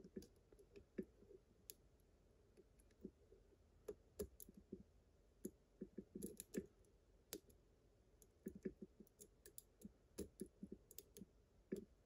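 Faint, irregular clicks of a lock pick working the wafers of a slider cam lock held under a tension wrench.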